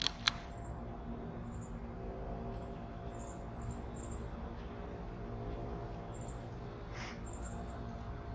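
Outdoor ambience: a steady low hum under short, high-pitched chirps that come and go, with two sharp chip-like clicks right at the start and one brief call about seven seconds in.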